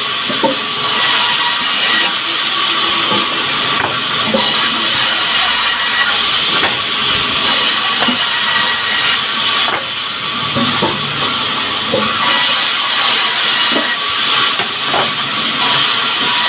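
Log bandsaw mill running, its blade cutting through timber with a steady hissing whine and occasional light knocks.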